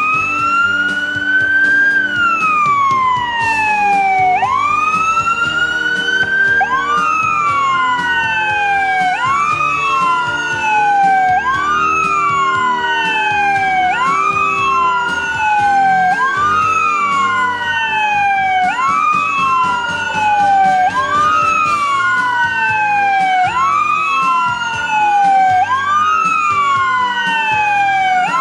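Fire truck sirens wailing together, starting abruptly, each cycle rising quickly and falling away more slowly about every two seconds, with the cycles of more than one siren overlapping. A steady lower tone runs underneath.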